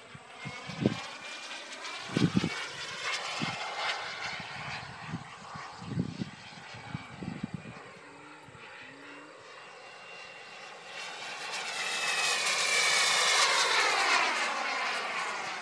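Turbine engine of an RC model jet whining in flight. It swells to its loudest about twelve seconds in as the jet passes, and its pitch falls as it goes by. Several low thumps come in the first half.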